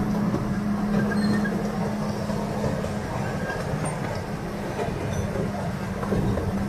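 Miniature passenger train running steadily along its track, heard from an open passenger car: a constant drone with a low rumble from the wheels on the rails.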